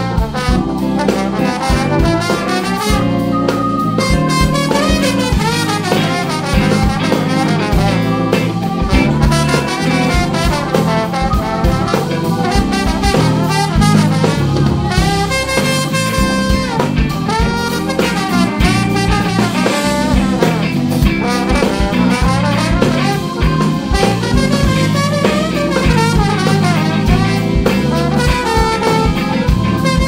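Live jazz band playing, with a trombone soloing in bending, sliding lines over drum kit, bass and keyboard.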